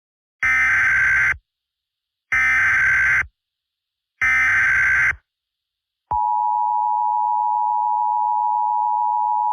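Emergency Alert System signal: three short bursts of warbling data tones (the SAME header), about two seconds apart. About six seconds in, the steady attention tone begins, which announces the spoken alert.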